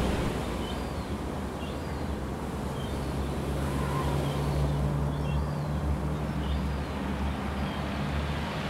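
Seafront outdoor ambience: a steady low rumble and wash of noise, with brief high bird chirps scattered through it.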